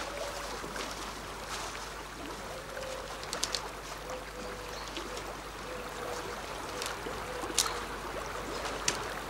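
Steady outdoor hiss with soft rustling and a few short snaps and cracks of tall meadow plants and twigs as people creep through the undergrowth; a faint steady tone runs underneath.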